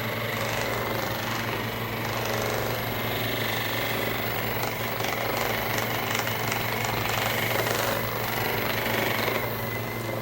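A small electric motor runs steadily with a fast buzzing, hammering texture, and stops just before the end.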